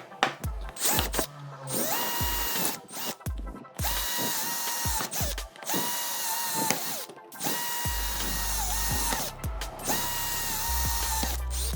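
Small electric drill run in about five short bursts, each spinning up to a steady whine and winding down again, with clicks between bursts, as it works holes into a plastic project box.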